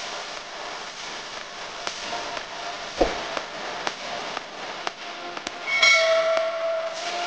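Faint background with light ticks, a single sharp knock about three seconds in, then a short bright electronic chime of a subscribe-button sound effect about six seconds in.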